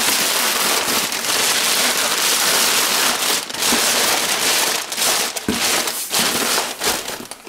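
Crumpled packing paper crinkling and rustling as it is stuffed and pushed down inside a cardboard box, with a few sharper crackles.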